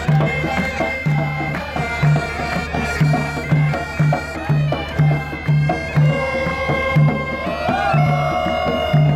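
Bagpipes playing a traditional folk melody over a steady drone, with a barrel drum beating under it roughly twice a second.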